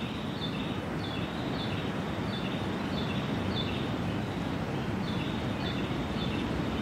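Steady wash of distant surf, with a small bird repeating short high chirps, each dropping in pitch, about twice a second.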